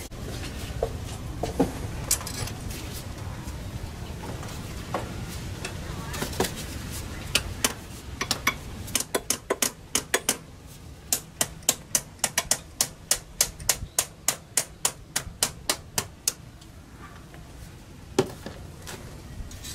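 Hand tools working at an engine's camshaft seal bore while the old cam seal is removed: scattered clicks and scrapes, then, from about eight seconds in, a run of sharp metal taps at about three or four a second that lasts some eight seconds.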